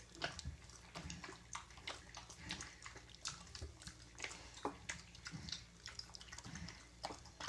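Mini pig piglets suckling at the sow's teats: a faint, irregular string of quick wet smacking and sucking clicks.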